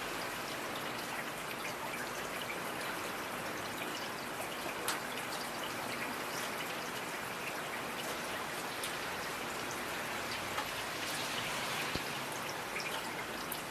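Steady rain falling, a dense even hiss with individual drops ticking now and then.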